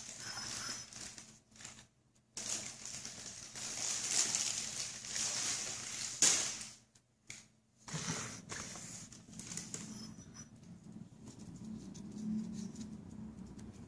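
A cat eating freeze-dried food nuggets from a small dish: irregular crunching and rustling, loudest and busiest in the first half, then softer.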